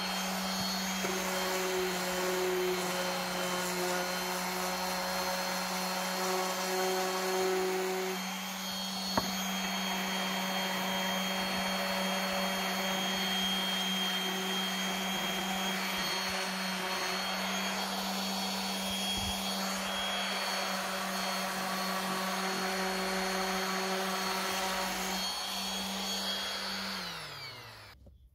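DeWalt random orbital sander running steadily on a wooden board, a constant motor hum with the rasp of sandpaper on wood, and a single sharp tick about nine seconds in. Near the end it is switched off and winds down, its pitch falling away.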